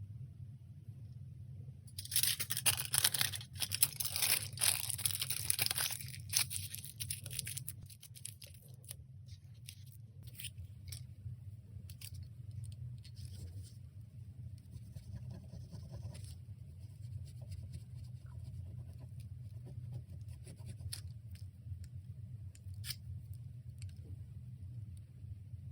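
A hand nail file rasps rapidly back and forth over a gel-coated fingernail for about five seconds, starting about two seconds in. Scattered light scrapes and clicks follow, all over a steady low hum.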